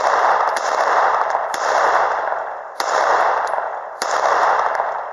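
Glock 19 9 mm pistol fired four times at a slow, steady pace, about a shot a second. Each shot is followed by a long echoing tail that dies away before the next.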